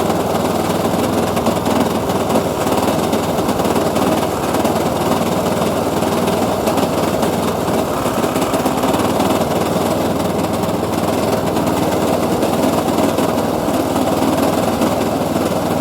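Makita lawn mower's small engine running steadily and loudly at a constant speed.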